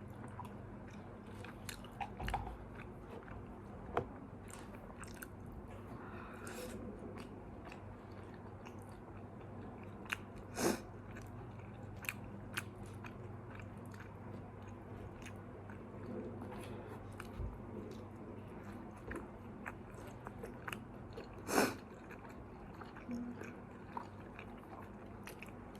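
Close-miked chewing and biting of McDonald's fast food, with many small crunches and clicks and two louder sharp sounds about ten and twenty-one seconds in. A steady fan hum runs underneath.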